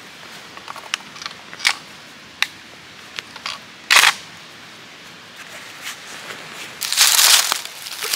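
Scattered sharp clicks and ticks, the loudest about four seconds in, then a crunching rustle of dry leaves starting about seven seconds in.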